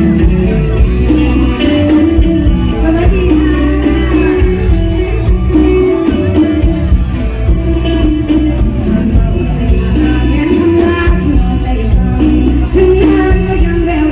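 Live Isan mor lam band playing loudly, with drums, bass and electric guitar under a melodic line, and a singing voice over the music.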